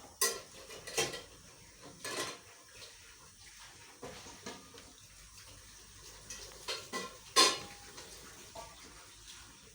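Cups, plates and cutlery clinking on a café table: a handful of separate clinks, the loudest near the end with a short ring.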